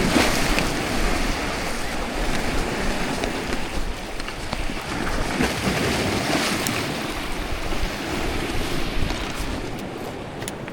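Sea waves surging and washing, with wind buffeting the microphone; the wash swells and eases and grows a little softer near the end.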